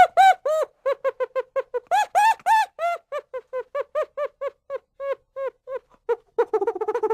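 Chimpanzee calling in a rapid series of short hoots, about four or five a second, each rising and falling in pitch; a few higher, louder calls come about two seconds in, and the calls run together more roughly near the end.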